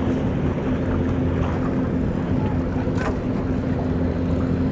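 Steady low drone of a passing roll-on/roll-off cargo ship's diesel engines carrying across the water, with a constant hum. A short, faint hiss comes about three seconds in.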